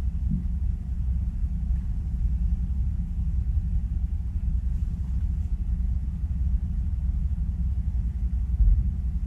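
Semi-truck's diesel engine idling, a steady low rumble heard from inside the cab.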